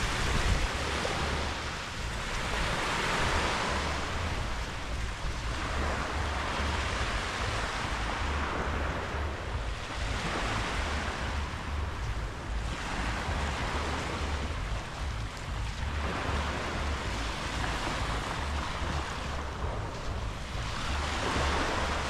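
Small sea waves breaking and washing up the beach, the wash swelling every few seconds, over a steady low rumble of wind on the microphone.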